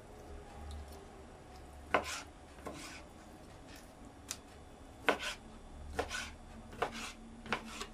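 Kitchen knife cutting raw chicken fillet into cubes on a plastic cutting board: a scattered series of short, sharp knocks as the blade strikes the board, starting about two seconds in.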